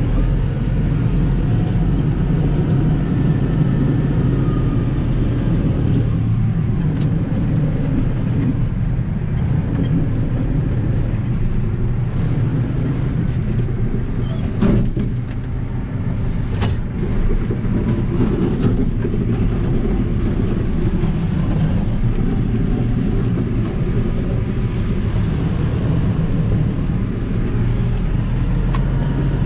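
Snowplough vehicle's engine running steadily, a low drone, with a few sharp clicks around the middle.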